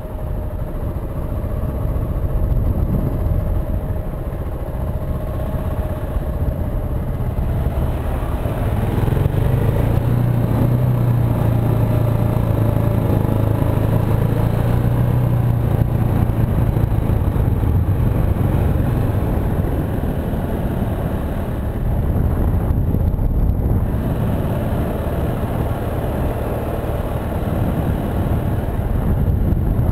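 KTM 690 Enduro's single-cylinder engine running under way, building up from about eight seconds in and easing off briefly a little past twenty seconds.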